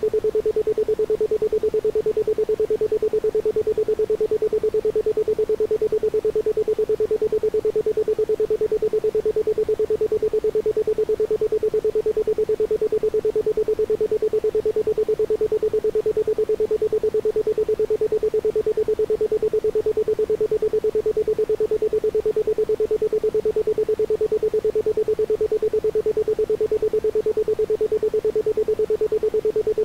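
Isochronic tone: a steady 432 Hz pure tone pulsing rapidly and evenly on and off, with no other sound.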